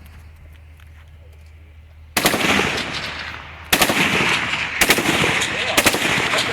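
Machine guns firing on full auto: faint distant shots, then a sudden burst of rapid fire about two seconds in, and a second stretch of rapid fire a second and a half later that keeps going with louder reports on top.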